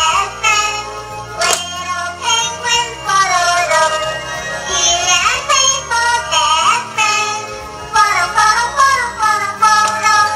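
Electronic-sounding children's song with a sung melody over music, with a sharp tap about a second and a half in.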